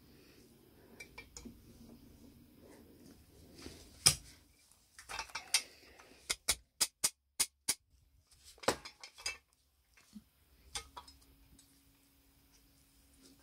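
Painted sheet-metal parts of a kerosene ship's lamp clinking and knocking as they are handled and fitted together. A sharp knock comes about four seconds in, then a quick even run of about seven clicks, then a few more knocks.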